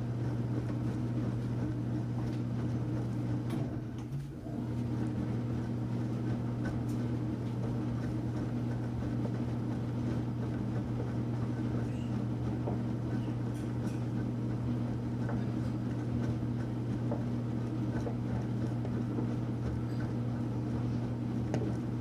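Enxuta Luxo Soft washing machine running with a steady low motor hum, which dips briefly about four seconds in.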